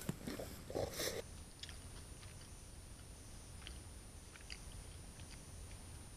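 A person chewing and biting into southern fried chicken, faint, with scattered short clicks. A thin steady high-pitched whine starts about a second in.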